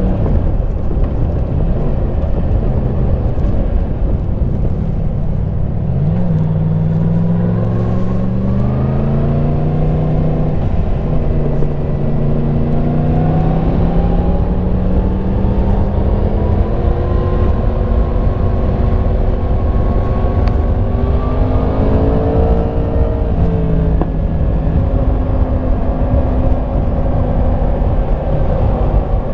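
Yamaha MT-10 SP's crossplane inline-four running on the stock exhaust under way, with heavy wind and road rush. It holds a steady note, then pulls with the engine pitch climbing in stages with short dips at the gear changes, eases off, and settles back to a steady cruise near the end.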